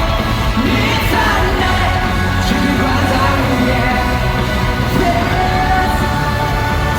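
Live rock-pop concert music heard through a phone's microphone in a large hall: a full band with a male voice singing over it, and some yells from the crowd.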